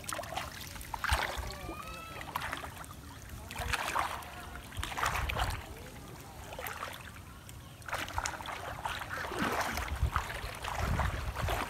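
Shallow water splashing and sloshing in irregular surges as a person wades through it, hauling a fishing net up out of the water.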